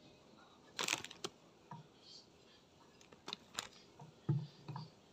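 Quiet handling noises from hands working cauliflower and cheese at a wooden cutting board: a short rustle about a second in, then a couple of clicks and soft knocks.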